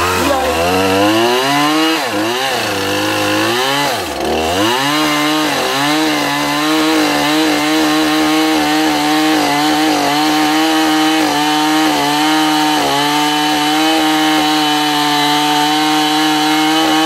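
Chainsaw revved up and down a few times, then held at a steady high speed for about twelve seconds while cutting into dead mesquite wood, easing off right at the end.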